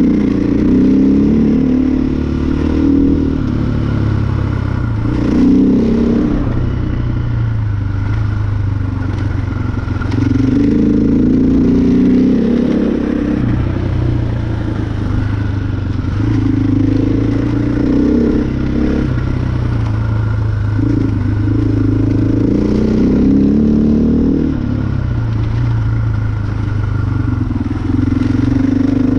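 KTM 500 EXC's single-cylinder four-stroke engine being ridden, its note repeatedly climbing as the throttle opens and then dropping back, several times over.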